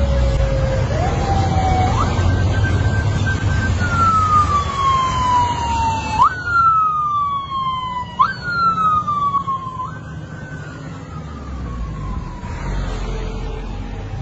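Vehicle siren wailing in repeated falling sweeps. Each sweep jumps abruptly up in pitch and glides down over one to two seconds, about five times, then fades out near the end. Under it runs a steady low rumble of vehicle engines and road noise.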